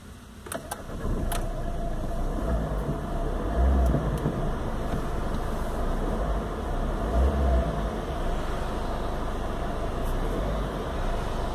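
Warm Peugeot 206 engine being started: a couple of clicks from the ignition, then the engine catches about a second in and runs at an idle of about 1000 rpm, with two short louder low swells. This is the hot restart after which this car's engine gives no response to the accelerator.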